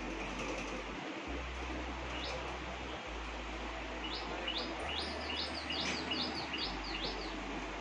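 A small bird chirping: one short high note about two seconds in, then a quickening run of about a dozen short high chirps from about four to seven seconds, over a steady background hiss.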